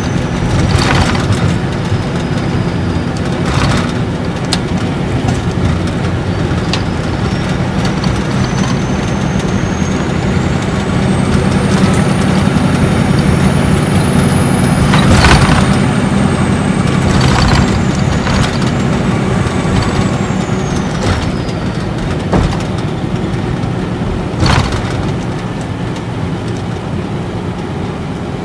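Cabin running sound of a Nissan Diesel Space Arrow RA coach's inline-six turbo diesel with torque-converter automatic: a steady low engine drone with a thin turbocharger whistle that rises in pitch over the first half and falls away about twenty seconds in. About five short sharp knocks stand out over the drone.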